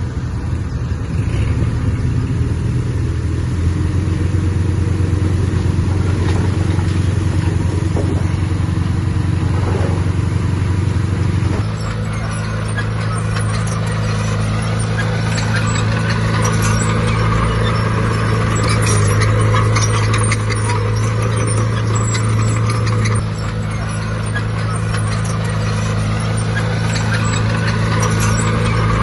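Diesel engine of heavy earthmoving machinery running steadily under load. About twelve seconds in, its note shifts to a slightly different pitch and a rattle of fine metallic clicks joins it.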